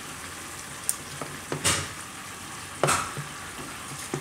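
A spoon stirring idli batter with Eno in a bowl, knocking against the side several times, with two louder clinks about a second and a half and three seconds in. Under it, a steady sizzle of Schezwan chutney cooking in a pan on a low flame.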